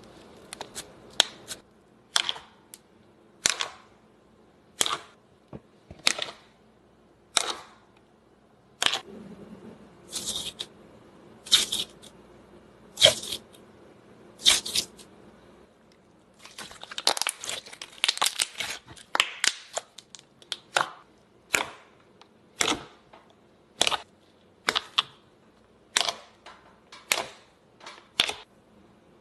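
Slime being worked and squished, giving sharp wet pops and clicks about once a second, with a dense run of crackling pops around the middle.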